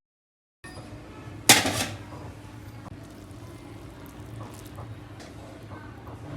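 A metal cooking pot or utensil clanks once, loudly, about a second and a half in, ringing briefly. A steady low kitchen hum follows, with a few faint clinks.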